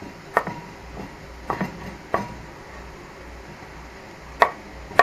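A utensil scraping grated carrot off a wooden cutting board into a frying pan, with about five sharp knocks and clinks against the board and pan, some with a short metallic ring.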